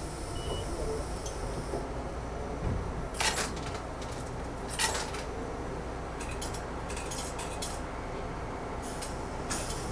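Randen (Keifuku) tram running on its rails: a steady low rumble with sharp metallic clinks and short squeals from the wheels every second or two.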